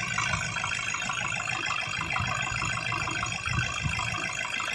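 Toyota Hilux engine idling steadily.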